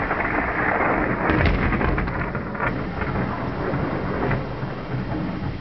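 Thunder rolling over rain. It swells about a second and a half in with a run of sharp cracks, then eases back to a low rumble.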